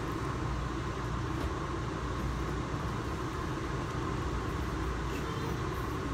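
Steady low rumble with a faint constant hum inside an Amtrak passenger car.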